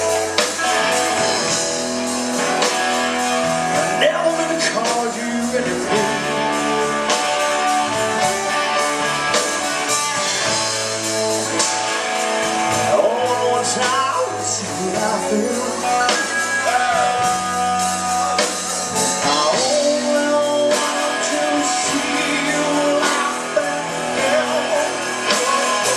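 Live rock band playing: electric guitars, keyboards and drums, loud and continuous.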